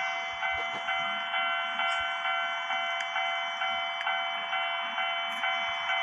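Japanese railway level-crossing alarm bell ringing, its electronic clang struck over and over in an even rhythm of about three times a second.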